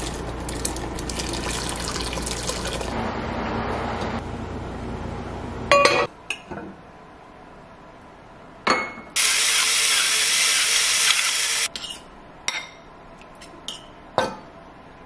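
Chicken stock poured from a carton into a pot of vegetables, a steady splashing pour, followed by a sharp clink against the pot, a few knocks and a couple of seconds of steady hiss.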